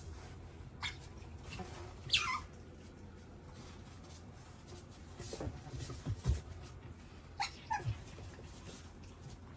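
Otter making hungry squeaks for food: a short squeak near the start, a longer squeak sliding down in pitch about two seconds in, and two quick chirps near the end, with a few low knocks in between.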